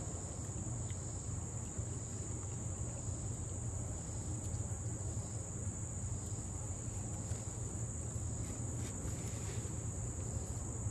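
Insects chirring in a steady, unbroken high-pitched drone, over a low steady rumble.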